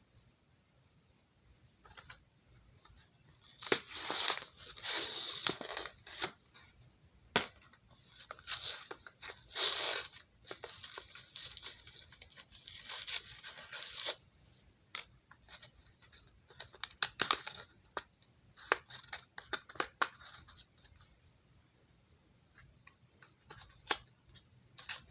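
Packaging being torn and cut open with scissors: several long, rustling tearing bursts, then a run of short sharp snips and clicks.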